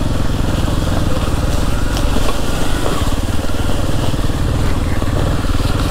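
Kawasaki KLX230's single-cylinder four-stroke engine running steadily under way, a fast, even run of firing pulses.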